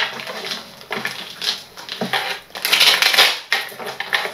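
A tarot deck being shuffled by hand: the cards rustle and flutter in several irregular bursts, each lasting a fraction of a second to half a second.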